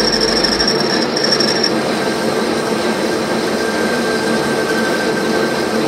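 Lathe turning an ISO 30 machine spindle: a steady cutting noise as the tool machines the spinning steel spindle nose. A thin high whine stops about a second and a half in, and a fainter steady tone carries on.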